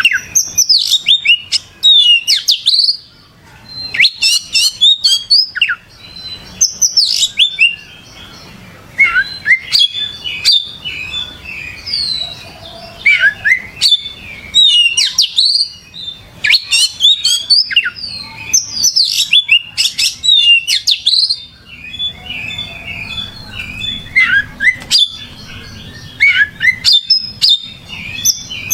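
Oriental magpie-robin (kacer) singing vigorously and without letup: rapid phrases of sweeping whistles and chattering notes, each burst lasting a second or two, with short pauses between them.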